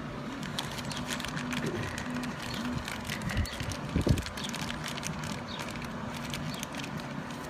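Plastic packaging crinkling and rustling in the hands, many small crackles, as a new ignition switch is unwrapped from its bag. A steady low hum runs underneath, and there is one louder thump about four seconds in.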